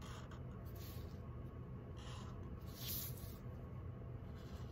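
Sharpie permanent marker drawn across paper along a metal ruler in several short hissing strokes, the strongest about two to three seconds in, over a low steady hum.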